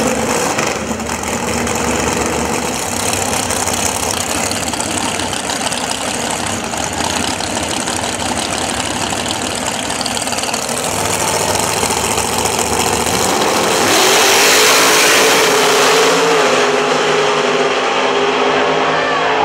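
Drag race cars' engines running and revving, with a louder, noisier stretch about 14 seconds in.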